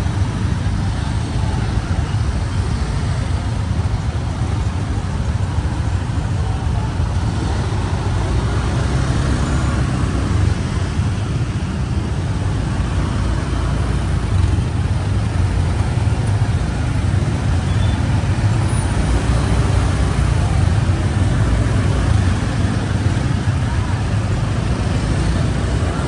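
Steady traffic noise heard from a motor scooter riding slowly through congested traffic: small scooter engines running and road noise around, heaviest in the low end, with no sudden events.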